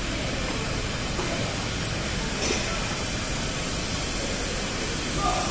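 Steady hissing workshop noise, with a faint click about two and a half seconds in and another brief sound near the end.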